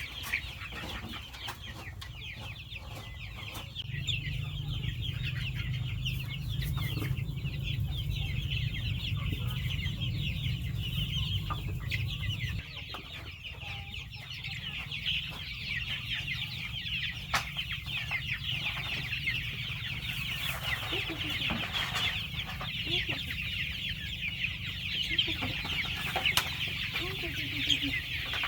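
A flock of farm chickens clucking, over a continuous high-pitched chattering and a low rumble that is heavier for several seconds early on, with scattered small clicks.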